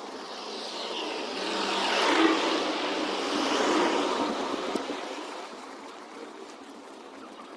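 Street traffic: a vehicle passes close by, its noise swelling to a peak about two seconds in and then fading away.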